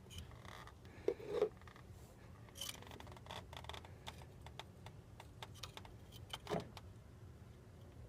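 Light clicks, scrapes and small metallic rattles of tools and parts being handled during hands-on work, over a low steady hum. The loudest handling noises come about a second in and again near six and a half seconds.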